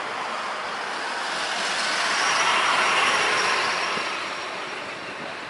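Boeing 787-8 Dreamliner's twin turbofan engines at takeoff thrust as the airliner lifts off and passes. The jet noise swells to its loudest about three seconds in, then fades, with a thin high whine above it.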